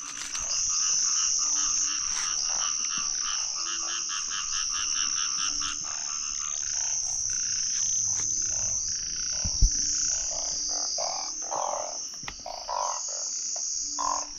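A chorus of frogs calling at night after rain, rapid pulsing calls overlapping one another, over a steady high shrill of insects. A single sharp knock about ten seconds in.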